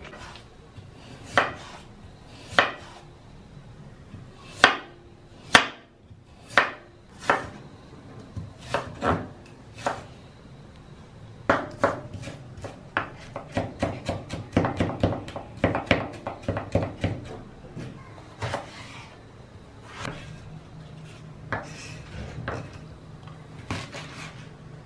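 Kitchen prep: a knife knocking on a wooden cutting board, with dishes and utensils clinking. It comes as irregular sharp knocks at first, then a fast run of chopping strokes in the middle.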